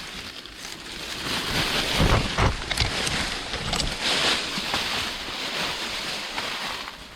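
A gust of wind hissing and buffeting the microphone. It swells about a second in, rumbles low around two seconds, and dies away near the end.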